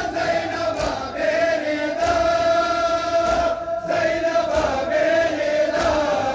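A large crowd of men chanting a noha in unison, with the whole group striking their chests together in a slow, even beat about once every second and a quarter: Shia matam, chest-beating mourning.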